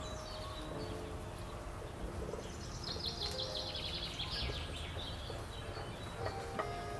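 Wooden rolling pin rolling out pizza dough on a floured wooden table, with a bird chirping in a quick run of notes about three seconds in.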